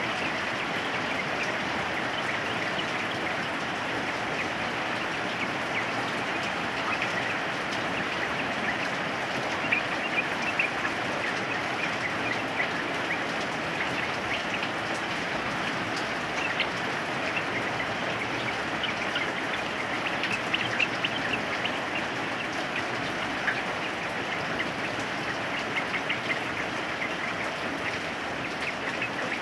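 Steady rain falling, with yellow-vented bulbuls giving short bubbling calls in scattered bursts over it.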